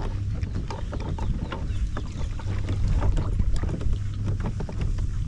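Wind buffeting the microphone on a drifting kayak: a steady low rumble with scattered small knocks and taps.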